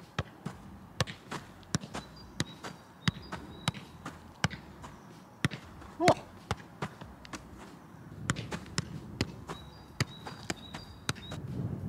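A football tapped over and over with football boots during ball-control touches on artificial turf: a quick irregular series of sharp ball taps, about two to three a second.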